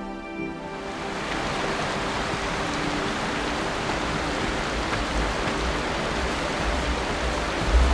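Steady rushing of a mountain creek, coming up about a second in as background music fades away.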